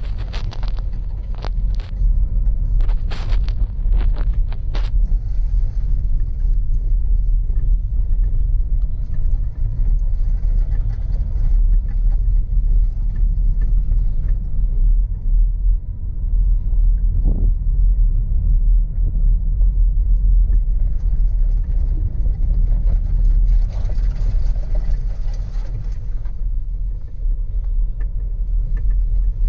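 Cabin noise of a Škoda Karoq 1.5 TSI driving slowly over a bumpy field track: a steady low rumble of engine, tyres and suspension, with several sharp knocks in the first five seconds.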